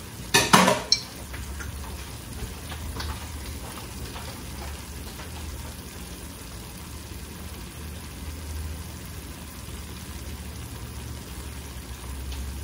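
Ground beef, onions and melted cheese sizzling steadily in a skillet, with a short, sharp clatter about half a second in.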